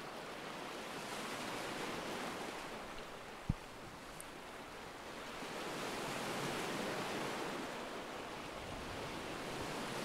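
Recorded ocean waves: surf washing in and out, swelling and easing over several seconds. A single short low thump about three and a half seconds in.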